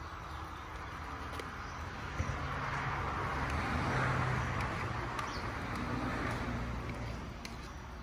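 A passing road vehicle: its noise swells over a couple of seconds, peaks about halfway through, then fades away. A few faint clicks are heard along with it.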